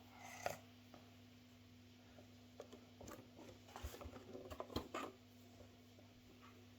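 Faint handling noises of hands mixing and kneading Play-Doh, with a scatter of soft taps and clicks, most of them between about three and five seconds in, over a steady low hum.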